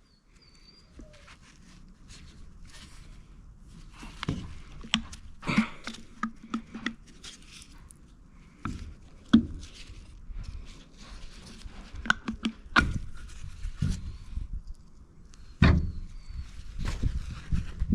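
Scattered clicks, knocks and scuffs of hands and tools handling parts, over a low rustling, with several sharper knocks.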